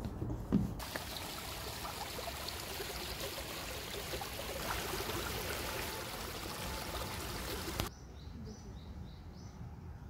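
Steady rushing of a small stream flowing over stones, cutting in abruptly about a second in and stopping abruptly near the eight-second mark; a few short bird chirps follow.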